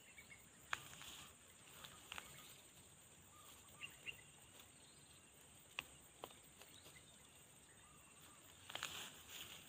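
Near silence: faint outdoor ambience with a steady, faint high hiss and a few soft, isolated clicks.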